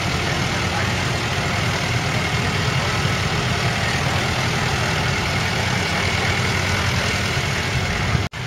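Claas Arion 440 tractor's 4.5-litre four-cylinder diesel engine running steadily as the tractor moves slowly. The sound breaks off for an instant near the end.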